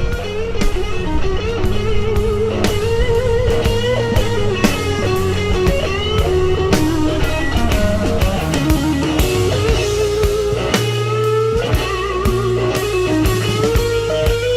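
Background music: blues-rock with a wavering lead guitar melody over bass and a steady drum beat.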